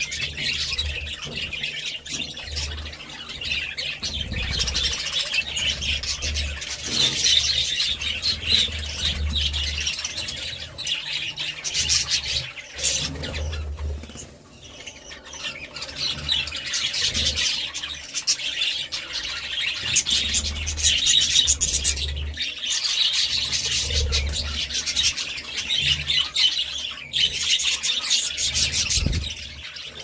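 A flock of budgerigars chattering: a dense mix of warbling, chirps and squawks that dies down briefly about halfway through. Wings flutter now and then as birds fly between perches.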